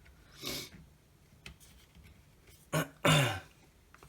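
A man clearing his throat, a short huff about half a second in, then a louder two-part throat clear near the end, with a faint click between.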